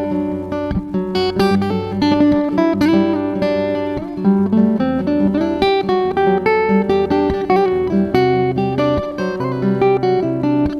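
Acoustic guitar played fingerstyle, quick plucked melody notes ringing over a looped layer of the same guitar with sustained bass notes, built up on a Zoom G3Xn looper.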